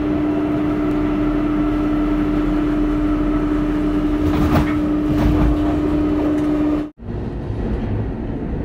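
Train running, heard from inside the carriage: a steady hum over a low rumble, with a few knocks about four and a half to five and a half seconds in. About seven seconds in, the sound cuts off abruptly and a rougher rumble without the hum follows.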